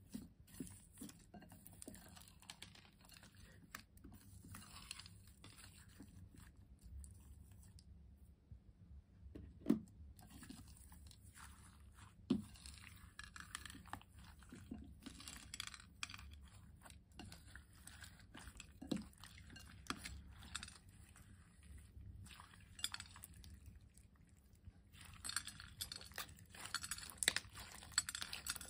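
Slime being kneaded by hand through small plastic beads in a glass dish: a run of fine crunching and clinking, with a few louder sharp clicks. The crackling grows louder and busier near the end as the slime is squeezed.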